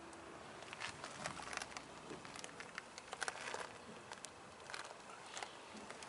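Faint footsteps: an irregular run of light crunches and ticks.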